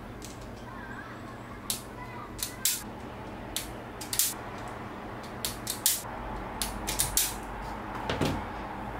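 Sharp irregular clicks and snaps of a Sunkey self-adjusting wire stripper, its jaws and blade clacking as it is squeezed and released on a black cable, about a dozen in all. A steady low hum runs underneath.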